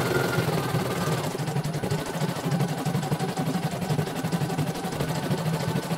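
CNY portable computerized embroidery machine stitching a design: a steady run of rapid needle strokes over the hum of its motor, with faint higher tones that shift now and then.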